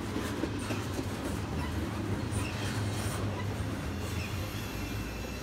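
Double-stack intermodal freight train's well cars rolling past close by: a steady rumble of steel wheels on rail with faint clicking. It eases slightly near the end as the last car goes by.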